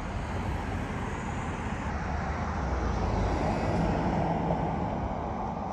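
Road traffic: a car driving past, its noise building to a peak about three to four seconds in and then fading.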